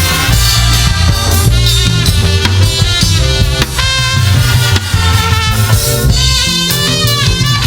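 Live band music: a drum kit keeping a steady beat under strong low bass notes, with a pitched melody line over them.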